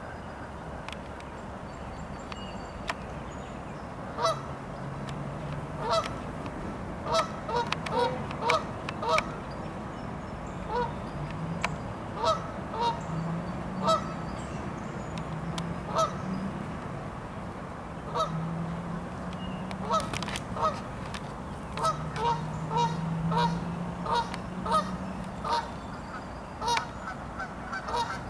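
Canada geese honking: short, sharp honks, singly and in quick runs, starting about four seconds in and repeating irregularly.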